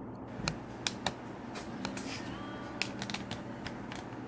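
Scattered light clicks and taps, about eight of them at irregular intervals, over a faint steady low hum.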